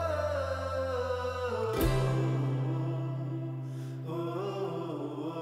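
Background music: a slow melody over held low chords, the chords changing about two seconds in.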